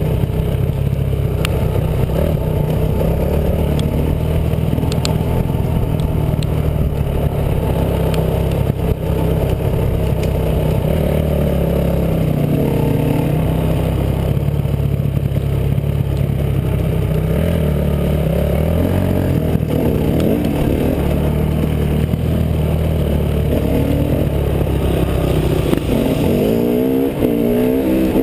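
Dirt bike engine running as it is ridden along a trail, heard from on the bike, its pitch rising and falling with the throttle and revving up and down several times near the end. A few sharp clicks of clatter sound in the first few seconds.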